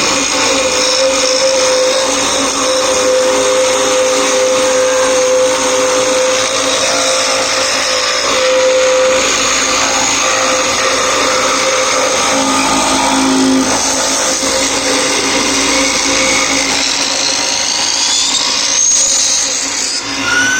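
Cane milling (sizing) machine running with a steady motor whine and a busy mechanical noise, as it works dry cane poles into round rods. The tone shifts a little partway through.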